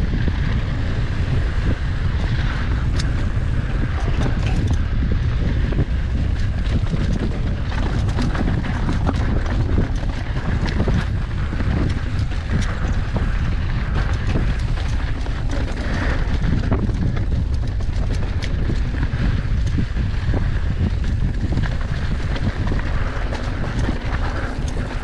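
Wind rushing over an action camera's microphone while riding a mountain bike on a dirt trail, with tyres rolling over dirt and rocks and frequent small clicks and rattles from the bike.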